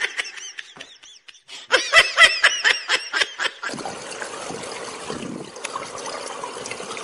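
A person laughing in a quick run of short 'ha-ha' pulses, then a steady hiss of open-air ambience with water at a swimming pool from about halfway in.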